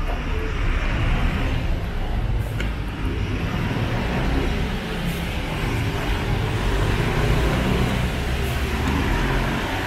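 Car traffic passing on a wet street: a steady rush of tyres on wet asphalt over the low running of the engines.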